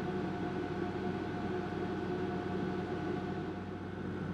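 Small window air conditioner running: a steady hum with several held tones over even fan noise.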